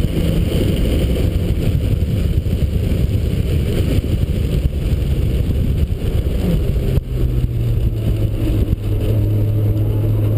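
1991 Mazda Miata's 1.6-litre four-cylinder engine running at speed, mixed with heavy wind and road noise. About seven seconds in, the engine note drops to a lower, steadier tone.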